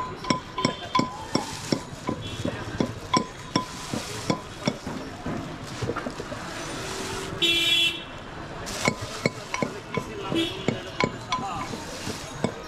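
Rhythmic knocking of a utensil, about three strokes a second, as raw fruit vorta is worked by hand at a street stall. A vehicle horn sounds briefly about two-thirds of the way through.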